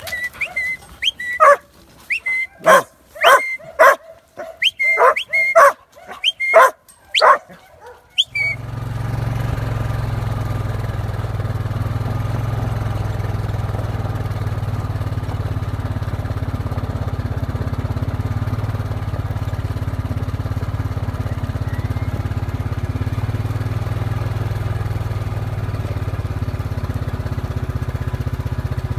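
Working sheepdog barking repeatedly, about two barks a second, as it pushes sheep along a yard race. About eight seconds in the barking stops abruptly and a steady low vehicle engine drone runs on.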